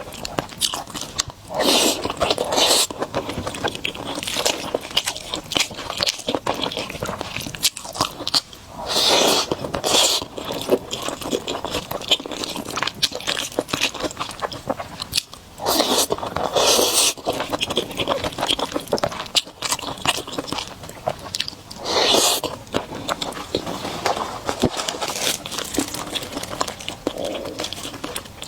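Close-miked eating: a person biting and chewing food with wet, crunchy mouth sounds, and about four louder one-second surges of noise spread through.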